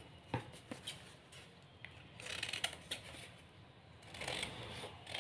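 Scissors cutting through a doubled sheet of paper along a pattern line, faint: a few scattered snips and stretches of crisp paper rustling.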